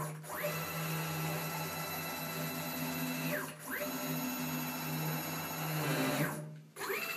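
CNC-converted G0704 mill table traversing under its X-axis drive motor on the stock lead screw: a machine whine that rises in pitch as the axis speeds up, holds steady, and falls as it slows. It makes two such moves, one out and one back.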